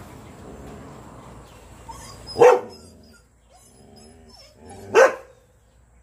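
A dog barking at monkeys: two single sharp barks, about two and a half seconds apart.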